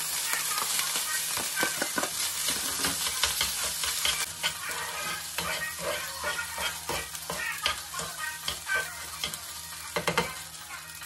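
Cooked rice sizzling in a hot frying pan as it is tipped in and stirred, with metal utensils clicking and scraping against the pan. The sizzling eases a little toward the end.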